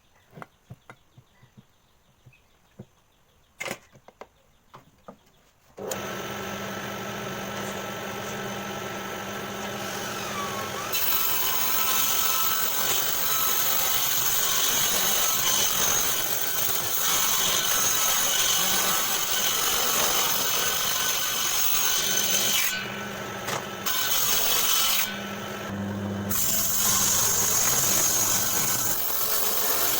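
Homemade table saw: a few scattered knocks and clicks, then the saw's motor starts suddenly about six seconds in and runs steadily. From about eleven seconds it gets louder and noisier as the blade cuts wood, easing off briefly twice near the end.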